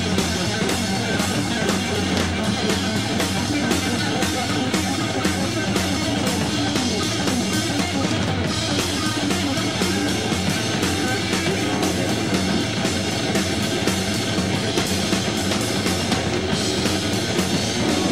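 Live hard rock band playing an instrumental passage: a Fender Stratocaster electric guitar soloing over fast, driving drums with a steady beat of cymbal and drum hits.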